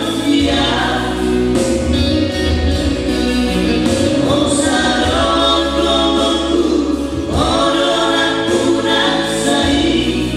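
Male vocal trio singing a Christian song in close harmony through microphones, in phrases of a few seconds with long-held notes, over a steady low accompaniment.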